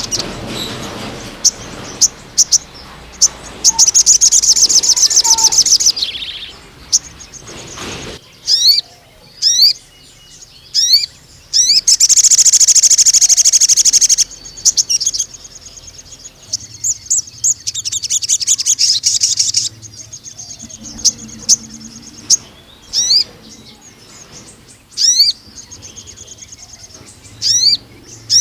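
A male sogon (crimson sunbird) singing. It gives repeated high, thin, sweeping chirps broken by three long, rapid, buzzing trills: the extended 'nembak' song that is used as lure and tutor song for other sogon.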